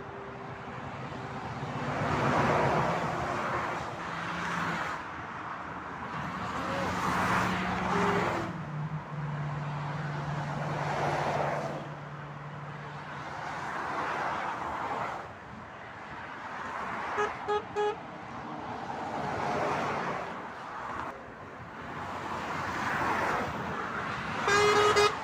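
Motorway traffic passing one vehicle after another, lorries and cars, with tyre and engine noise rising and falling as each goes by. A lorry's low engine hum holds for several seconds. A quick run of short horn toots comes about two-thirds through, and a louder horn blast near the end.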